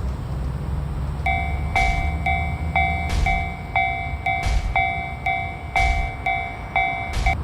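Japanese level crossing warning bell ringing about twice a second, starting about a second in, over the low rumble of a passing train with a louder clack roughly every second and a half.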